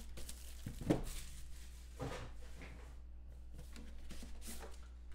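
Hands opening a sealed cardboard trading-card box: shrink-wrap and cardboard rustling, with a sharp knock about a second in and a smaller one about two seconds in. A low steady hum runs underneath.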